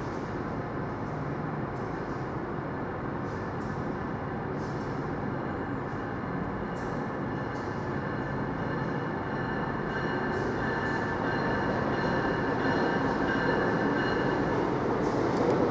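A train running past, its steady rumble growing louder over the last several seconds, with faint high whining tones coming in during the second half.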